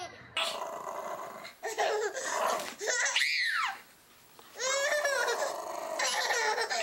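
A small dog growling in a playful tug-of-war over a towel, with a baby squealing and babbling.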